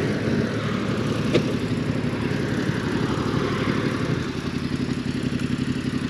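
Motorcycle engine idling steadily with an even low pulsing.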